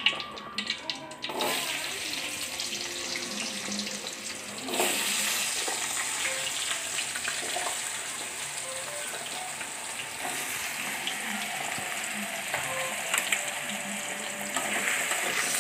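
Diced potatoes sizzling as they fry in hot refined vegetable oil in a karai. The sizzle starts about a second in, grows louder at about five seconds, and then holds steady.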